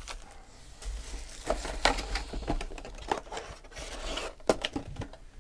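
Foil-wrapped trading card packs crinkling and tapping as stacks of them are set down and squared up on a table, with scattered light clicks, the sharpest about four and a half seconds in.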